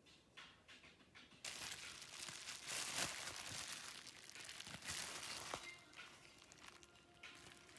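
Crinkling and rustling, as of material being handled, for about four seconds, ending with a sharp click.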